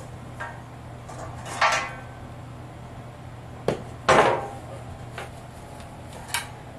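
Sheet-steel cabinet panels being pulled apart and handled: a scrape about two seconds in, a sharp click and then the loudest clatter a little past halfway, and one more click near the end.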